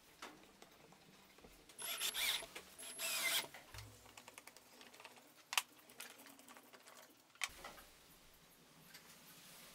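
Homemade wooden corner clamp being worked: its threaded steel rod and wooden blocks make two short scraping bursts about a second apart. Two sharp clicks follow later.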